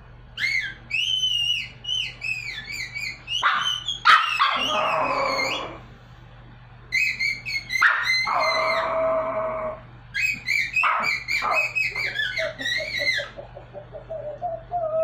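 Pomeranian dog trying to sing: high, wavering howls and yelps in three bouts a few seconds long, trading with steady held notes that the man blows through his cupped hands. Near the end the dog's voice breaks into a run of short rising yips.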